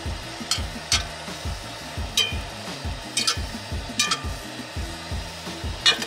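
Chicken sizzling in a pan while a utensil stirs and scrapes it, clinking sharply against the metal about half a dozen times. Background music with a steady beat plays underneath.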